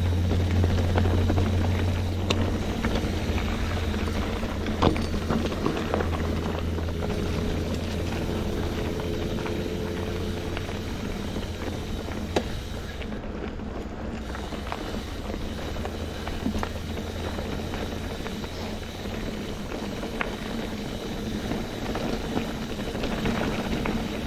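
Mountain bike riding over a packed-gravel trail: steady wind rumble on the microphone and rolling tyre noise, with scattered sharp clicks and rattles from gravel and the bike.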